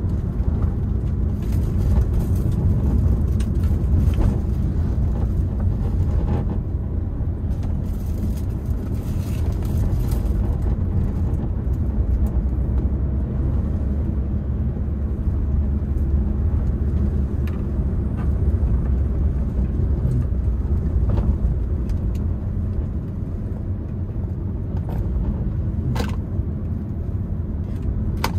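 Honda Brio being driven, heard from inside the cabin: a steady low rumble of engine and road noise. A few brief clicks sound now and then.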